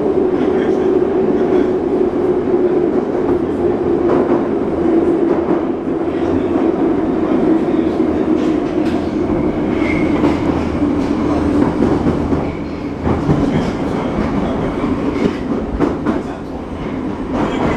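Vintage Moscow Metro train running through a tunnel, heard from inside the car: a steady roar with a motor hum that slowly falls in pitch, and the clatter of wheels over rail joints. The falling hum fits the train slowing as it nears a station.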